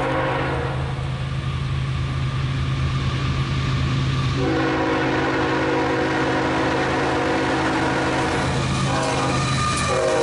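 Approaching Norfolk Southern freight's lead locomotive, a GE ES44AC, sounding its multi-chime air horn: a blast ending just after the start, a long blast from about halfway, a short one, then another starting near the end whose pitch begins to drop as the locomotive passes. The diesel engines drone steadily underneath.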